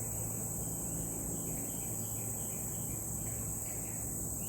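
Steady high-pitched chorus of insects, one unbroken shrill drone, from the swampy woods.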